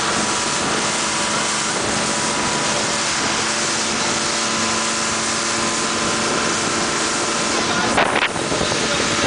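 Motorboat engine running steadily at speed while towing a parasail, with the rush of the churning wake and wind buffeting the microphone. There is a brief sharp knock about eight seconds in.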